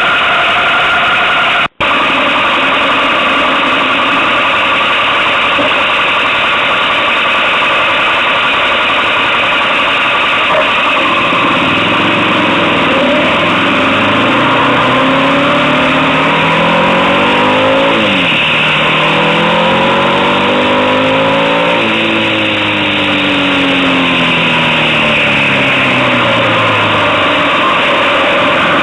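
Motorcycle engine running under way, heard over loud steady wind rush on the camera. From about halfway through, its note climbs and falls again several times, with abrupt drops as revs are cut for bends or gear changes.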